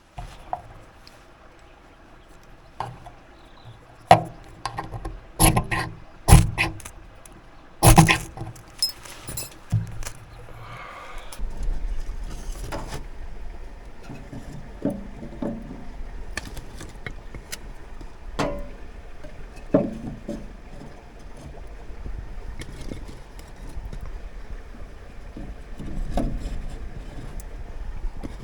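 A string of sharp knocks and clatters of firewood and metal being handled while a small tent wood stove is loaded for lighting. From about a third of the way in, a steady low rumble sets in, with a few lighter knocks over it.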